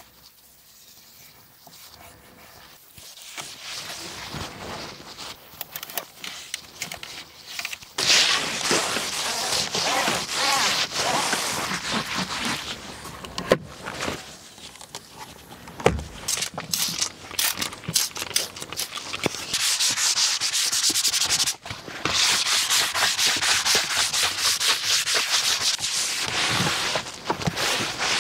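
Scrubbing by hand: quick, repeated rubbing strokes on a surface during car detailing. It starts faint and gets much louder about eight seconds in.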